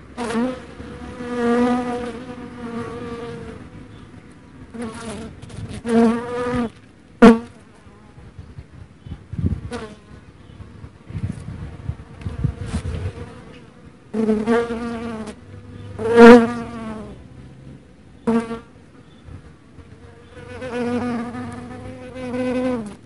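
Black honey bee buzzing in flight, its wingbeat hum swelling and fading in a series of close passes with quieter gaps between. It is loudest in two brief peaks, about seven and sixteen seconds in.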